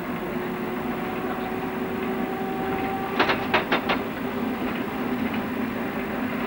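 Munich M-class tram running along its track, a steady running noise with a steady motor hum. About three seconds in, the wheels give four sharp clacks in quick succession, typical of passing over a rail joint.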